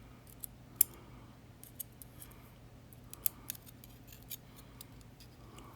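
Irregular light metallic clicks and taps, about seven of them, with a sharper one about a second in, from a tool picking at the small parts inside a disassembled Yale 2000 Plus lock cylinder while hunting for a tiny spring.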